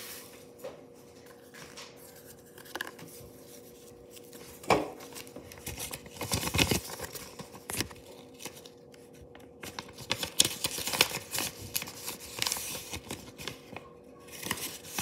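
Sheets of paper being handled and rustled in irregular bursts, with a few sharp clicks, over a faint steady hum.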